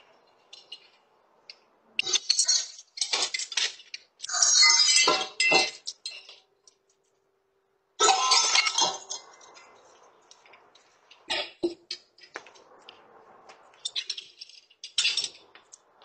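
Fire extinguisher being discharged in several short bursts of hiss, with clinks and knocks in between, heard through a doorbell camera's microphone. The longest hisses come about four seconds in and again about eight seconds in.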